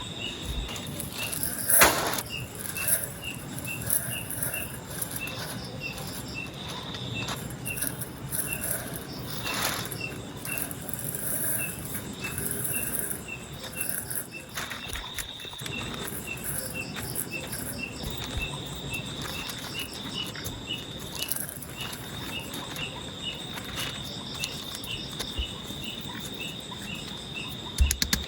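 Forest insects chirping and buzzing, with one short high chirp repeating about twice a second. Two sharp knocks stand out, about two seconds in and near ten seconds.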